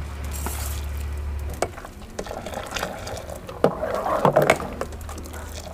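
Steel ladle stirring milk tea in an aluminium pot, clinking against the metal, then scooping up and pouring the frothy tea back with splashing about two-thirds of the way through. A low steady hum stops after about a second and a half.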